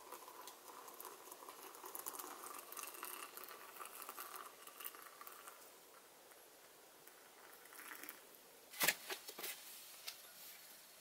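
Hot water pouring from a metal kettle into an enamel mug, a steady splashing trickle for about five seconds. About nine seconds in, a few sharp knocks.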